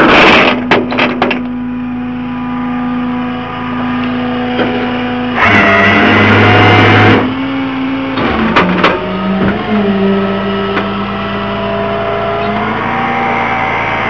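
Rollback tow truck's engine running steadily, with chains rattling and clinking in the first second or so and a louder rushing surge for under two seconds about halfway through.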